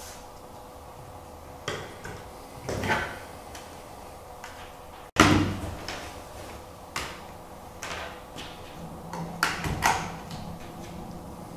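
Knocks, taps and clicks of handling: an acrylic LED clock being set down on a cutting mat, a power bank put down beside it and a USB cable plugged in. The loudest is a sharp knock about five seconds in, right after a sudden break in the sound. A faint steady hum runs underneath.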